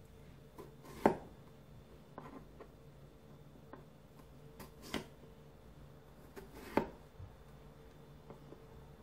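Kitchen knife cutting down into upright cucumber pieces on a wooden cutting board to score cross-shaped slits. Three sharp knocks of the blade meeting the board come about a second in, around five seconds and near seven seconds, with fainter taps between them.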